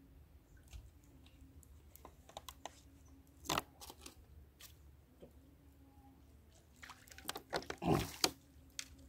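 Scattered crackling clicks and crunches close to the microphone, like handling or rustling. A louder cluster comes about three and a half seconds in and a louder, fuller burst near the end.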